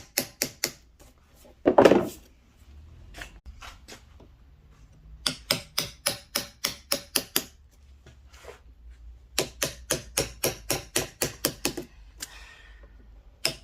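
Wooden mallet striking a carving chisel into ginkgo wood, about five quick sharp taps a second in three spells. About two seconds in there is a single heavier knock.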